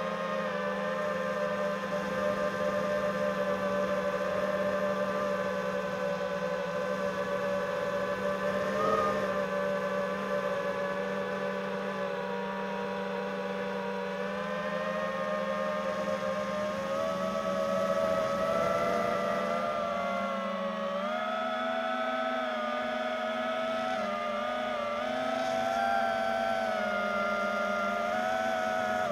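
FPV quadcopter's brushless motors and propellers whining steadily. The pitch drifts up and down slowly with the throttle and rises somewhat about two-thirds of the way through.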